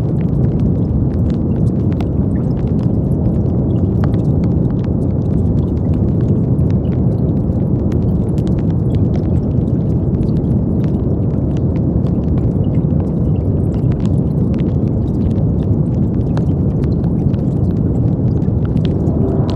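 Steady brown noise: a deep, even rushing with its energy in the low end, flecked with faint scattered clicks.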